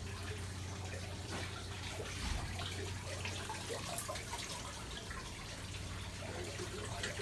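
Steady running water trickling, with small drips and splashes, over a low steady hum that weakens about halfway through.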